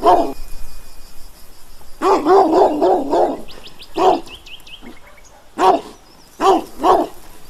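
A dog barking in short bursts: a quick run of about five barks about two seconds in, then single barks spaced out to the end. Faint high chirps sound between the barks.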